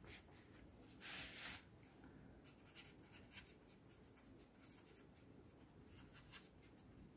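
Faint scratching of a marker pen on paper as a word is written in short strokes, with a brief, louder rubbing stroke about a second in.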